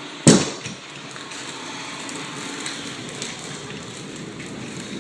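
A heavy 100-pound floor roller rolling over freshly glued engineered hardwood boards, pressing them down into the adhesive: a loud knock about a quarter second in, then a steady rolling rumble with a few faint ticks.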